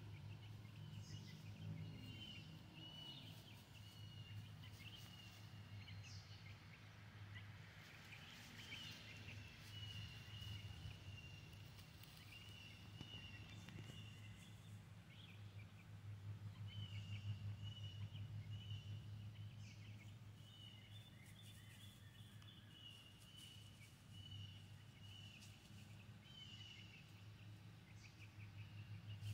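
Faint outdoor yard ambience: short high chirping calls repeating throughout, over a low steady hum.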